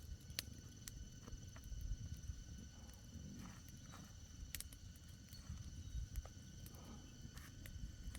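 Insects, crickets by the sound of it, chirring steadily in several high, even tones. Scattered light clicks and a low rumble run beneath.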